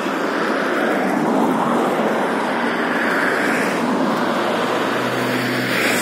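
Steady road traffic noise from cars passing on a nearby road, swelling about three seconds in and again near the end.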